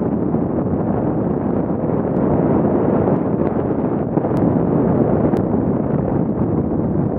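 Steady rushing wind noise on an action camera's microphone as a fat bike rolls fast over packed snow at about 30 km/h, with a couple of faint ticks around the middle.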